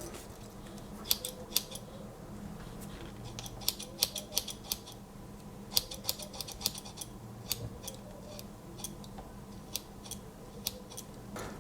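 Small spring-loaded scissors of a Victorinox Huntsman Swiss Army knife being snipped open and shut over and over, giving a series of sharp, irregularly spaced clicks.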